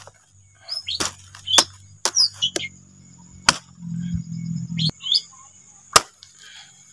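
A knife chopping into a fresh banana corm: about seven sharp blows at uneven spacing. Birds chirp briefly between the blows over a steady high insect drone.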